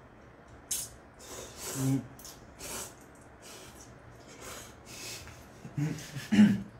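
Ramen noodles being slurped: a series of short, hissy slurps drawn through the lips, one after another. Near the end comes a burst of muffled, stifled laughter.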